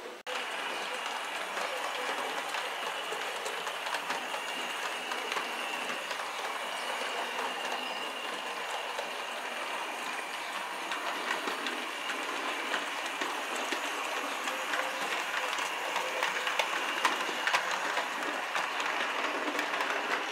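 Model train running along layout track: a steady rolling noise with many irregular clicks as the wheels pass over the rail joints. A faint steady high tone sits under it for the first several seconds.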